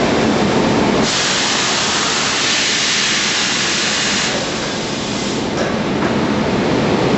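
Steady running noise of woodworking machinery on a door-press production line, with a loud hiss starting about a second in and lasting about three seconds.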